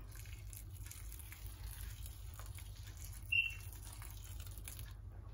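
Hot water poured from a kettle onto rice in a wide pan: a faint, steady patter. A brief high chirp sounds about three seconds in.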